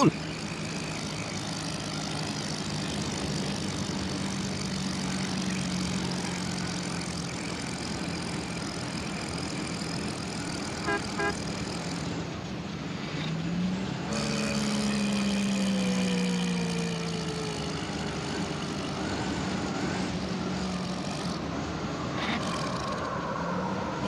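Cartoon van engine running, played backwards: a steady low hum over a windy hiss. About halfway through its pitch rises, then slides slowly back down, and just before that come two short toots.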